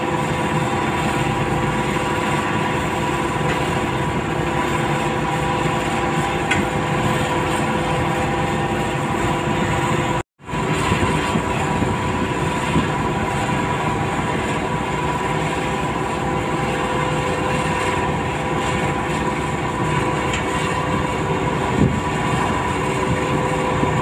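Diesel engine and hydraulics of a Komatsu PC200LC long-reach excavator running under working load, a steady engine noise with a steady whine over it. The sound drops out for a split second about ten seconds in, then carries on the same.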